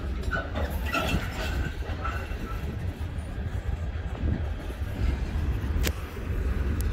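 Slow-moving Norfolk Southern freight train, its coil-steel cars and flatcars rolling past: a steady low rumble with wheel and rail noise, and one sharp click about six seconds in.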